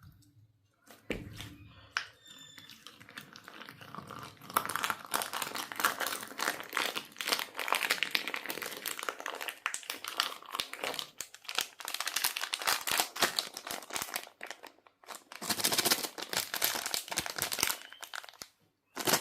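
Crackling, crinkling handling of slime with candies, a dense run of fine crisp clicks. It starts sparsely about a second in, thickens from about 4 s, breaks off briefly near 15 s, then resumes before stopping near the end.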